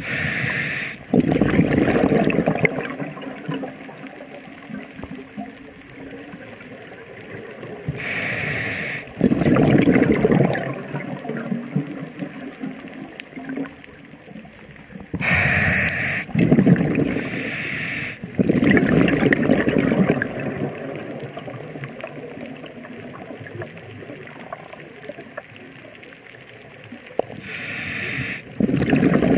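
Scuba diver breathing through a regulator underwater. Each breath is a short hiss on the inhale, then a few seconds of bubbling exhaust on the exhale. The cycle repeats about every eight seconds, with two breaths close together around the middle.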